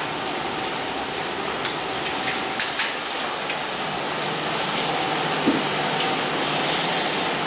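Metallic clicks of cartridges being pressed into handgun magazines, a few sharp clicks at irregular intervals over a steady background hiss.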